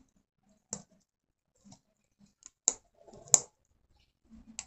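A few separate sharp clicks and taps of hands working small craft materials at a table, the loudest a little past three seconds in.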